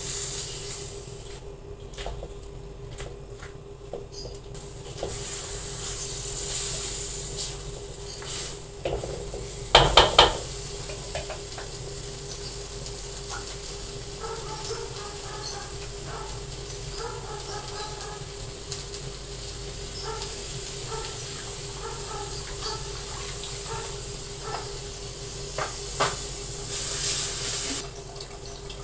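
Spatula stirring and scraping onions, tomatoes and spice paste in an aluminium wok, with a light sizzle and a steady hum underneath. About ten seconds in the spatula clatters against the wok in a few sharp knocks, the loudest sounds here, and a louder hiss comes near the end.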